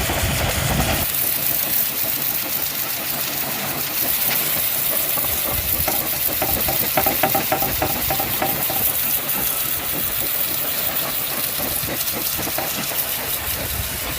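Electric pressure washer running, a steady motor-and-pump hum under a loud hiss of the spraying water jet. About a second in, the low rumble drops away and the hiss grows stronger.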